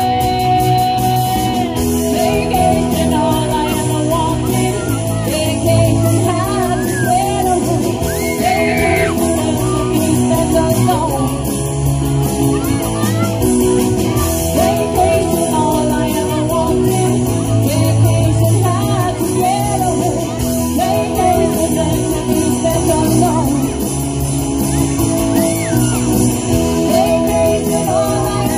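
Live rock cover band playing through a PA: women singing the lead over electric guitars, keyboard and drums, loud and steady throughout.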